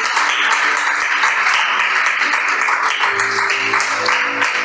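Congregation applauding, with background music of sustained notes growing stronger about three seconds in.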